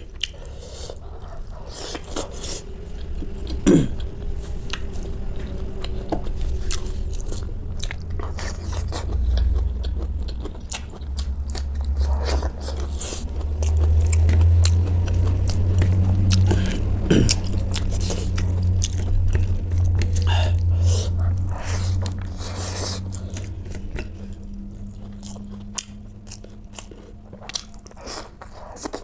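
Close-miked chewing and biting of food, with many short crunchy and wet clicks from the mouth.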